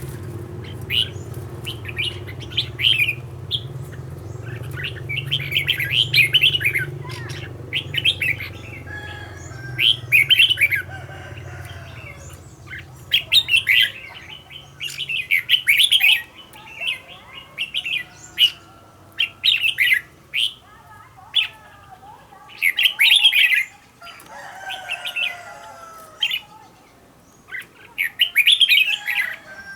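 Red-whiskered bulbul singing short, rapid song phrases again and again, with a few seconds' pause between some of them, amid sharp clicks and wing flutters. A low hum under the first half fades out.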